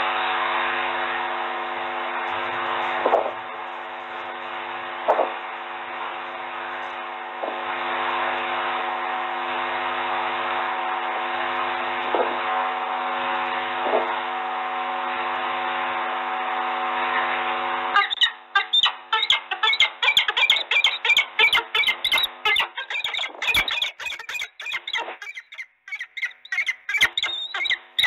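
A steady hiss with a faint hum, then, about two-thirds of the way in, peregrine falcons at the nest box break into rapid, high, repeated calls.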